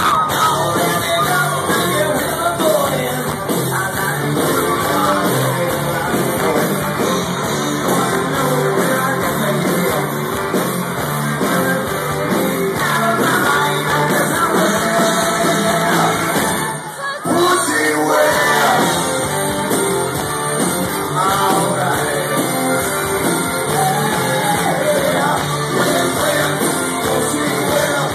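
Live rock band playing a song with a lead singer, loud and steady, with a brief drop in loudness about seventeen seconds in.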